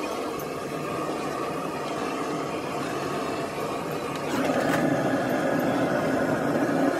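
Compressed air hissing steadily from a blow-gun hose into a plastic headlight lens, louder from about four seconds in.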